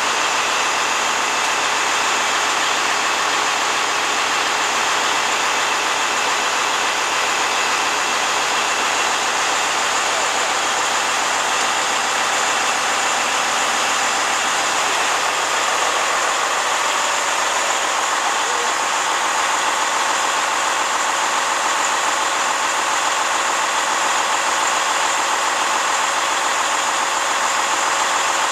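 Volvo 880 semi truck's diesel engine idling steadily.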